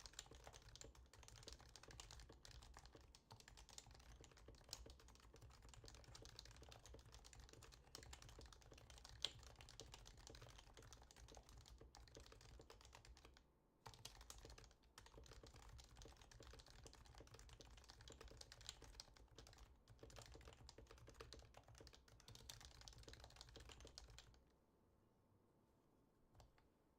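Happy Hacking Keyboard (HHKB) with lubed 55 g Topre switches being typed on in a steady, fast stream of soft key presses. The typing breaks off briefly about halfway through and stops a few seconds before the end.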